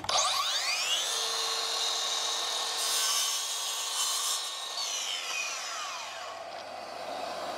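Makita brushless sliding mitre saw spinning up with a rising whine, cutting through a timber skirting board about three seconds in, then its whine falling away as the blade winds down about five seconds in. A dust extractor's steady hiss runs on after the saw stops.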